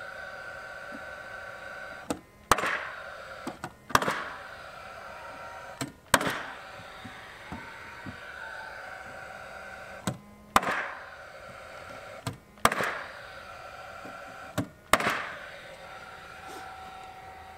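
Cordless Paslode framing nailer firing six times at uneven intervals, driving 2-3/8-inch galvanized ring-shank nails through plywood floor decking into the joists. Each shot is a sharp bang with a short ringing tail, most with a lighter knock just before it.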